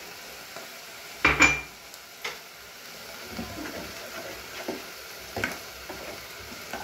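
A metal spoon stirring corn into white sauce in a stainless steel saucepan, with small irregular scrapes and clinks against the pot, over a steady sizzle of ground meat frying in the pan behind. A single loud ringing metallic clink comes about a second and a half in.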